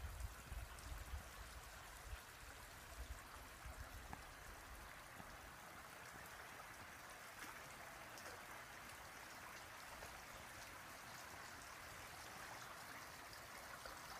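Faint river water trickling and dripping around a kayak, with scattered light drip-like ticks.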